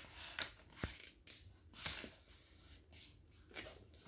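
A sheet of paper being folded and creased by hand on a tabletop: several short, scattered rustles and soft taps.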